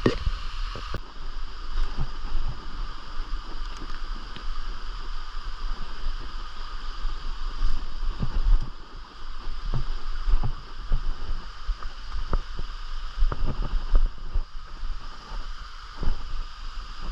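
Steady rush of a jungle stream's flowing water, with irregular low thumps and buffeting on the microphone.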